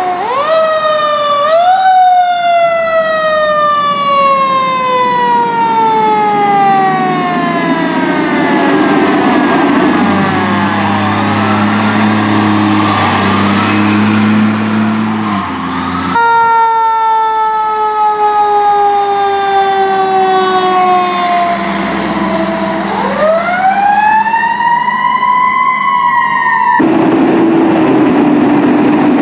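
Fire truck sirens, of the mechanical wind-up kind: each winds up in a rising wail and then coasts down in a long, slowly falling one, twice over with a cut between. In the middle, a steady low air-horn blast sounds for several seconds and stops abruptly.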